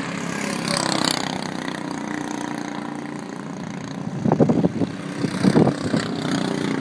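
Race car engines running as stock cars lap a short oval track, with two louder bursts of engine noise about four and five and a half seconds in.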